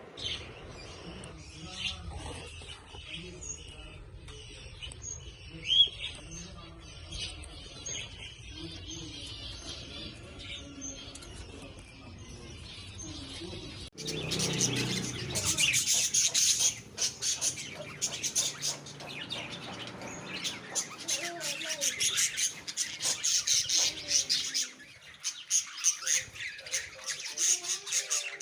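Cockatiels chirping and squawking. The calls are scattered and soft at first, then suddenly louder and much busier about halfway through.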